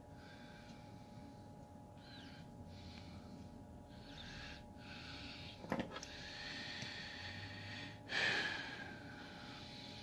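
A person breathing through the nose close to the microphone while hand-working paracord, over a steady low hum. There is one sharp click a little before the middle, and a louder breath out about eight seconds in.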